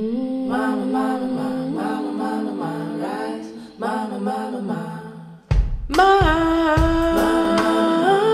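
Recorded song played back over Kharma Grand Ceramique Enigma hi-fi loudspeakers: a slow vocal line of long, sliding sung notes. About five and a half seconds in it drops out briefly and comes back louder, with deep drum beats under the voice.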